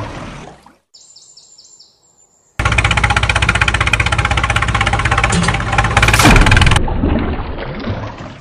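Tractor engine running loud and steady with a fast, even chug. It starts abruptly a little after two and a half seconds in and cuts off suddenly near seven seconds, then fades away. A few short high chirps come just before it.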